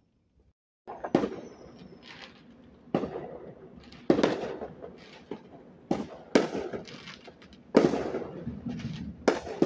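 Aerial fireworks bursting: a string of sharp bangs starting about a second in, roughly one every one to two seconds, each trailing off in a rolling echo. A short falling whistle follows the first bang, and crackling fills the last moments.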